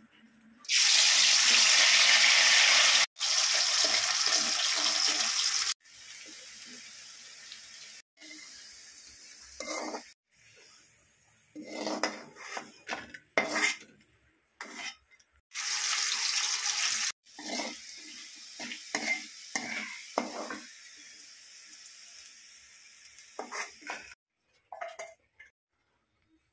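Potato slices deep-frying in hot oil in a metal wok: a loud sizzling hiss that comes and goes between cuts, with a metal slotted spoon clinking and scraping against the pan as the chips are stirred and lifted out.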